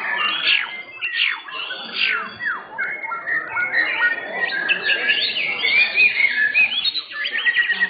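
White-rumped shamas (murai batu) singing in competition: several birds' varied whistles, sweeping notes and chirps overlap, with a quick run of short repeated notes near the end.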